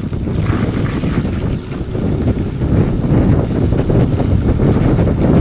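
Wind buffeting the microphone while riding along on a bike, a loud, uneven low rumble.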